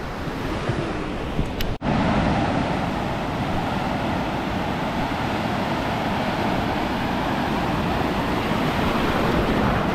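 Steady rushing noise of sea waves and surf, broken by a brief dropout about two seconds in, after which it comes back louder.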